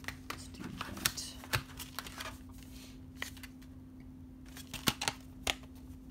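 Hands handling a Blu-ray steelbook: a paper insert and the plastic disc tray tapping and clicking, with the thin metal case clicking shut near the end. Scattered sharp clicks, the loudest two close together about five seconds in.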